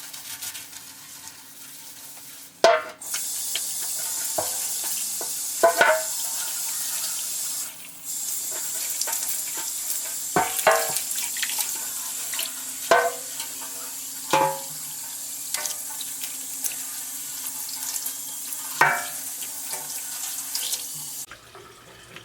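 Running water rinsing soapy motorcycle parts, a steady hiss that starts a few seconds in, breaks off briefly, and stops about a second before the end. Several sharp clanks of metal parts knocking, with a short ring after each.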